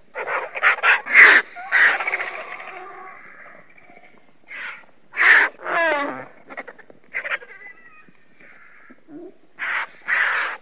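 Vultures calling with harsh, raspy squeals and hisses. A quick run of calls comes in the first two seconds, then single calls are spread out. One call about six seconds in has a fast, wavering rattle, and two more calls come near the end.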